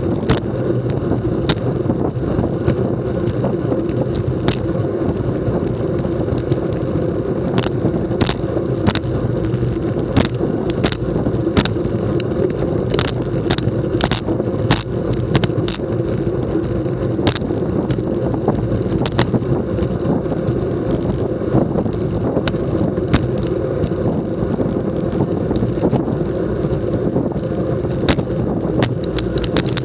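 Road bicycle riding at speed on a concrete road, heard from a camera mounted on the bike: a steady rush of wind and tyre rumble. Over it come sharp ticks and knocks every second or so as the bike jolts over the road.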